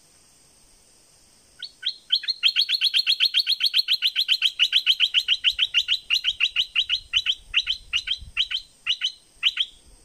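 Bulbul calling: a long, fast run of sharp, downward-sweeping notes, about eight a second, starting a second and a half in, then slowing and breaking up before it stops near the end.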